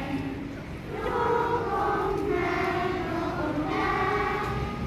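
A large group of young children singing a Christmas song together outdoors, with some adult voices among them. The singing starts about a second in, after a moment of crowd murmur.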